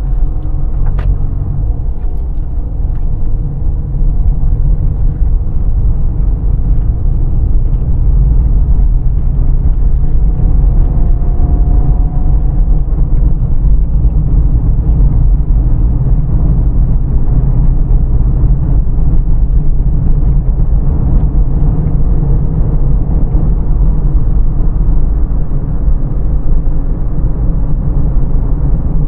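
A car driving, heard from inside: a steady low rumble of engine and road noise that grows louder about four seconds in as the car picks up speed, with a faint rising whine a few seconds later.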